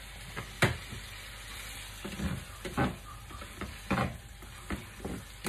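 Pork pieces sizzling in a hot frying pan as they are stir-fried, with a steady hiss. Every second or so a wooden spatula and fork knock against the pan as the meat is turned.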